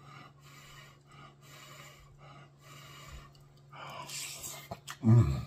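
A person eating hot spaghetti: soft breaths over the forkful, then a louder slurp as the noodles go into the mouth about four seconds in, followed by a short hum with the mouth full near the end.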